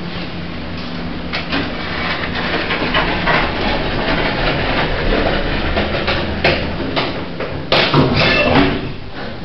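Modern passenger lift running, a steady low hum under constant rattling and knocking, with a few sharp clunks near the end.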